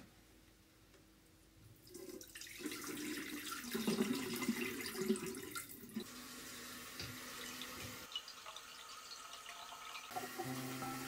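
Tap water running and splashing into a ceramic bathroom washbasin as a leafy plant cutting is rinsed under it. It starts about two seconds in and is loudest a few seconds later.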